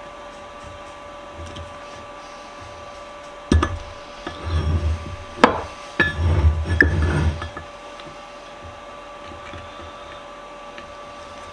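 Tools knocking and clanking against a metal bench vise while a seized screw is worked loose, in a cluster of knocks and handling clatter in the middle with one sharp strike, over a steady electrical hum.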